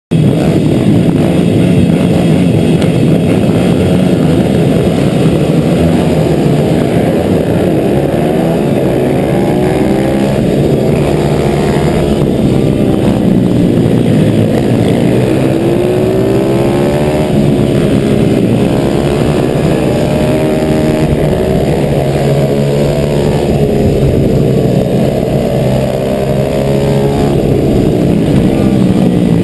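Stock 140 cc four-stroke single-cylinder pit bike engine racing flat out, heard onboard, its revs rising and falling over and over through gear changes and corners, with the engines of the surrounding pit bikes and wind noise mixed in. The sound cuts in suddenly at the start.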